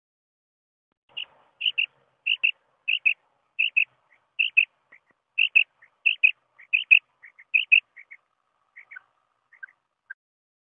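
Common quail calling: a quick run of short, high notes in close pairs, more than one pair a second, thinning out and growing fainter near the end.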